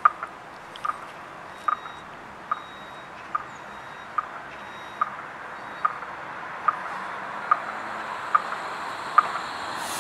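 A short single-pitch warning beep repeating steadily, a little more than once a second, over the Vossloh Citylink tram's running sound, which grows louder as it starts to move.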